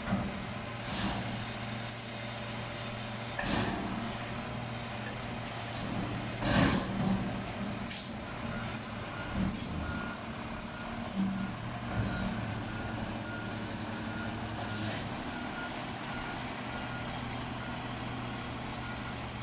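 Mack front-loader garbage truck's diesel engine running steadily while its forks lower and set down an emptied dumpster, with several sharp knocks and clanks, the loudest about six and a half seconds in. A faint repeated beeping runs from about nine seconds in.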